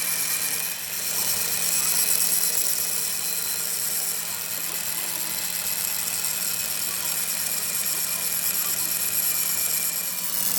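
A workshop machine or power tool running steadily: a continuous hiss with a few steady hum tones and a brief dip about a second in.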